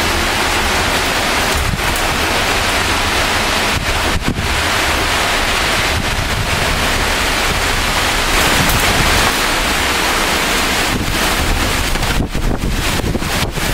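Torrential downpour with strong gusting wind: a dense steady rush of rain, with the wind buffeting the microphone in a low rumble.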